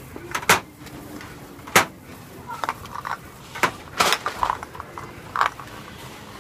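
Glass jars knocking and clinking as they are taken off a store shelf and handled: a handful of sharp, separate knocks a second or so apart, over the low hum of the store.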